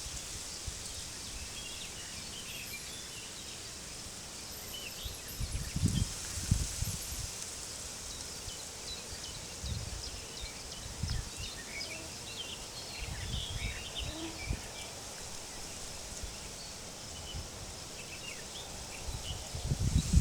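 Wind rustling through a wheat field as a steady high hiss, with gusts buffeting the microphone as low rumbles every few seconds. Small birds chirp and twitter throughout, with a few thin high whistles in the first few seconds.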